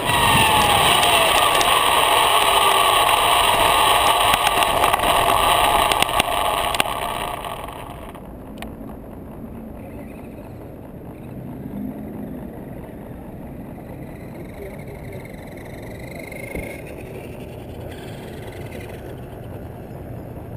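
RC buggy heard from its own onboard camera: drivetrain and tyres running loudly over rough asphalt, then the car slows and stops about seven seconds in, leaving only a low steady background with a faint distant whine.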